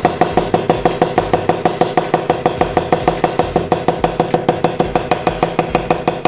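Hammer tapping leather over a steel block in rapid, even strokes, about seven a second, with a steady metallic ring under the taps, as the leather is shaped around a round form.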